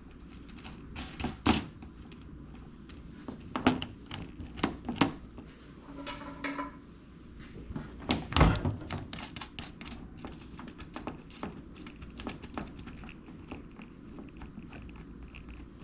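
Scattered clicks and knocks of small metal parts being handled as a battery cable's ring terminal is fitted onto a circuit breaker stud and its nut put back on, with one louder knock about eight seconds in.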